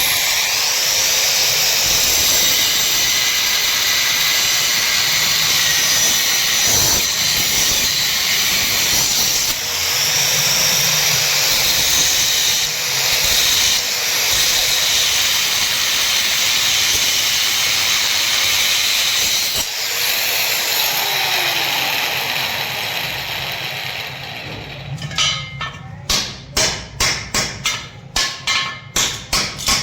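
Stick (arc) welding electrode burning on square steel pipe, a steady frying hiss and crackle for most of the time, fading out near the end. It is followed by rapid hammer strikes, about two to three a second, as of a chipping hammer knocking slag off the fresh weld.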